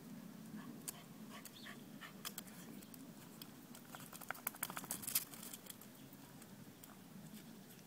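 Faint clicking and pattering of a West Highland white terrier's claws on stone paving as it walks, with a quick run of clicks about four to five seconds in.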